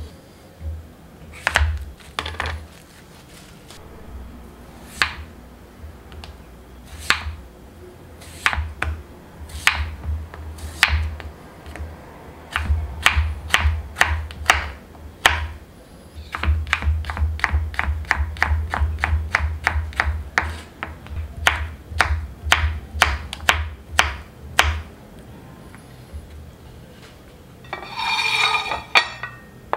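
Kitchen knife cutting a vegetable on a wooden cutting board: spaced single cuts at first, then a fast run of chops, about three a second, each knocking on the board. A brief rustling scrape near the end.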